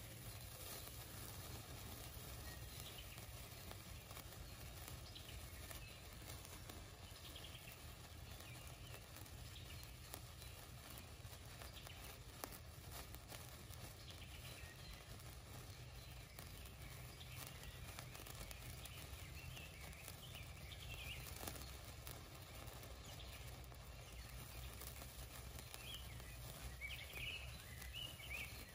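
Sunwing Happy Hour sparkler burning with a faint, steady crackle and fizz over a low background rumble. A few faint bird chirps come near the end.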